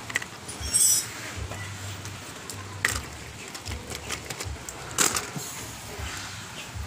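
Knocks, clicks and rattles of a homemade multi-axle RC truck chassis being pushed by hand and set down on a concrete floor, with its motor not running. The sharpest knocks come about a second in and about five seconds in.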